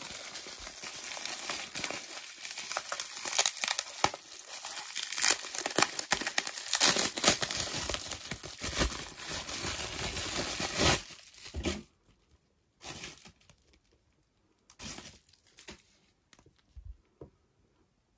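Plastic bubble wrap crinkling and rustling as it is unwrapped by hand, dense and continuous for about twelve seconds. After that come only a few brief, soft handling sounds.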